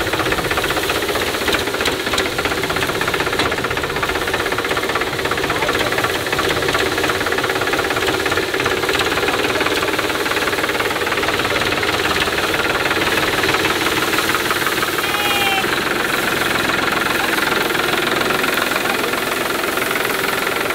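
Powertrac tractor's diesel engine running steadily, its firing heard as a fast, even pulse, as it drives round over spread mung bean plants to thresh them. A brief high rising sound comes in about 15 seconds in.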